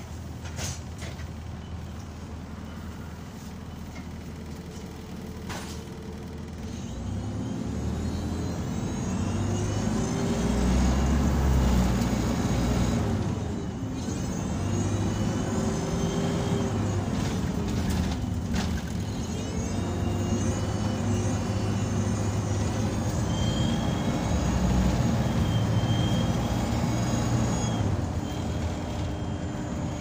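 Optare Solo SR single-deck bus accelerating hard, heard from inside the saloon: the engine note climbs and drops back twice around the middle at gear changes, with a high vacuum-cleaner-like 'hoover' whine rising over it as it pulls.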